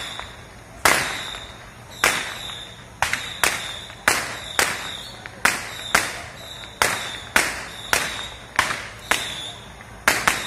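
Fireworks going off in quick succession, a sharp bang about twice a second, each trailing away briefly.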